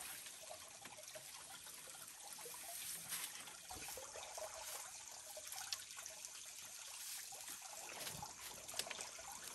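Water trickling steadily into a fish pond, with a few faint ticks and rustles from grass being handled.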